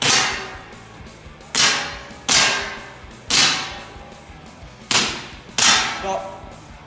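A gas blowback gel blaster pistol fired six times in a timed speed run, the shots sharp and uneven in spacing, each trailing off over about half a second.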